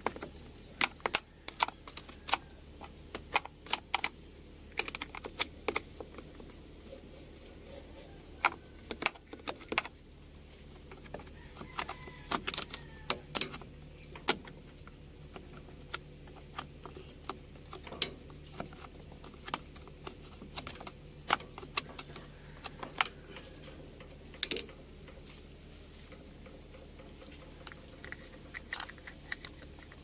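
Metal hand tool scraping and tapping at a backhoe's battery terminal post and cable clamp to clean off built-up grime: irregular sharp clicks and short scrapes, sometimes several in quick succession.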